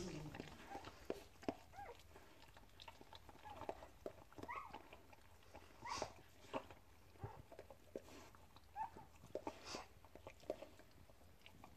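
English Springer Spaniel mother licking a newborn puppy: faint wet licking and mouthing clicks. A few times the newborn Springer-cross-Kelpie puppy gives a short high squeak.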